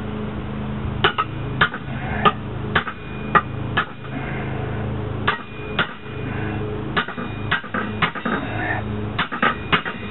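A hammer striking a steel tire iron wedged in the slot of a split lock ring on a truck rim, driving it in to pop the ring off the rim. It gives a run of sharp metal-on-metal blows, about two a second, with a pause around four to five seconds in, over a steady low hum.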